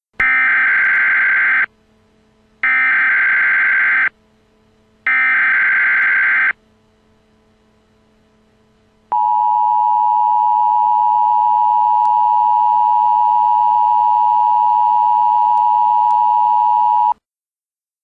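Emergency Alert System tones: three short bursts of screeching digital header data, each about a second and a half, then after a pause a steady attention tone held for about eight seconds that cuts off suddenly. These tones open an emergency alert broadcast, here a fire warning.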